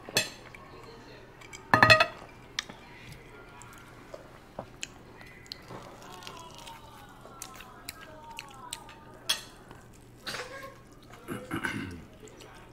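Scattered clinks and knocks of cups, plates and cutlery at a table during a meal, the loudest about two seconds in, with chewing and brief wordless voice sounds in between.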